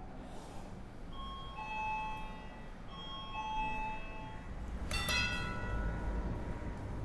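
Doorbell chime sounding a two-note ding-dong twice, about two seconds apart. About five seconds in comes a sharp metallic clack with a ringing tail.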